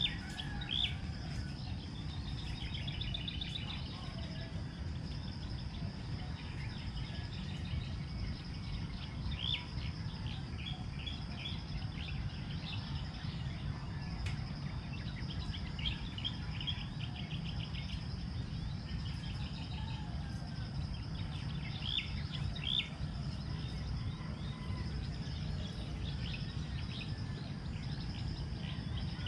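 Outdoor pasture ambience: scattered short bird chirps over a steady high insect drone, with a low steady rumble underneath.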